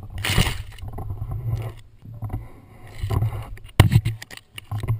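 Rustling of leafy brush and handling knocks as a handheld camera pushes through dense vegetation, over a steady low wind rumble on the microphone.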